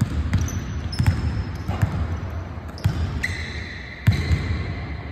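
Basketballs bouncing on a hardwood gym floor in irregular dribbles, each bounce booming in the big hall. In the second half a steady high squeal runs under the bounces.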